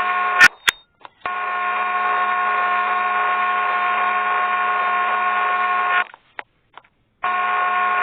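Steady electronic buzzing hum at one fixed pitch, with a couple of sharp clicks just before it starts. It runs for about five seconds, cuts off, and comes back on about a second later.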